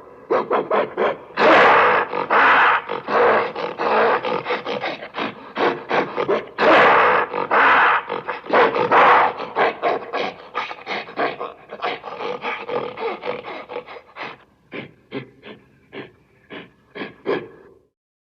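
Silverback gorilla vocalizing: a fast run of short pulsed calls, about four a second, broken twice by long roars, the first about a second and a half in and the second around seven seconds in. The pulses thin out and fade over the last few seconds.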